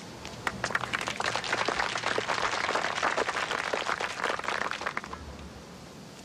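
A small crowd of spectators applauding: many hands clapping, starting about half a second in and dying away about five seconds in.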